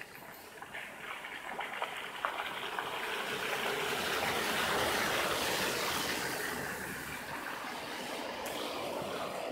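Spring meltwater trickling under thin ice on mud: a rushing, trickling noise that swells to its loudest around the middle and then eases off, with a few faint clicks in the first couple of seconds.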